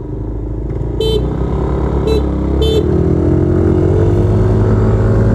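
Yamaha Aerox 155 scooters launching at full throttle from a standing start, the engine note rising steadily in pitch and loudness. Three short horn beeps come about one, two and nearly three seconds in.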